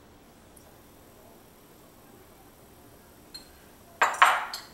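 Kitchen utensil clinking against a dish: a faint tap, then two sharp clinks close together near the end, each with a short ring.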